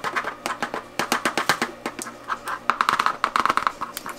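Curry powder shaken out of a plastic spice bottle into a small plastic tub: a quick, irregular run of plastic clicks and taps.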